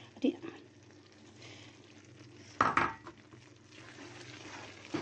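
Thick onion-tomato tarka sizzling quietly in a pan while a slotted wooden spatula stirs it, with one louder scrape of the spatula against the pan about two and a half seconds in.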